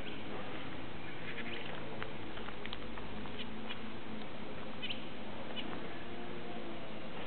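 Finches in an aviary giving short, high chirps and calls, scattered a few times over a steady background hiss.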